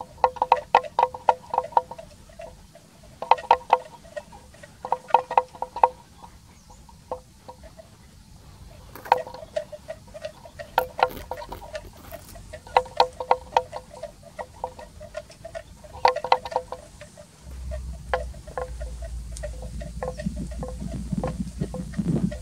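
Bell hung on a grazing water buffalo's neck clanking in short bursts of quick knocks, each a second or so long, again and again. A low rumble comes in near the end.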